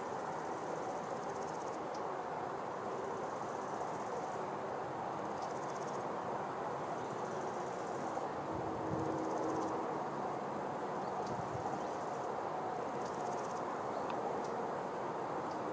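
Steady rush of river water and wind, with insects trilling high and thin in runs of a second or two that start and stop.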